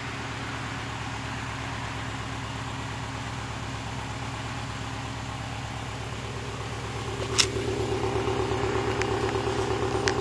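A 2011 Subaru WRX STI's turbocharged 2.5-litre boxer four idling steadily through its stock exhaust, with an even low pulse. A little past halfway a sharp click is heard, after which the engine sound is louder and carries an added hum, and a few light clicks follow near the end.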